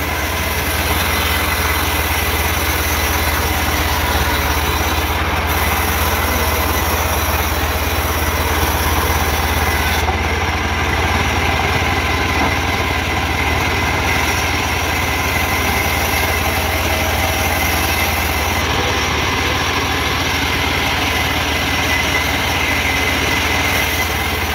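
Vertical band sawmill running and cutting a trembesi (rain tree) log: a steady machine drone with a low hum that holds evenly throughout.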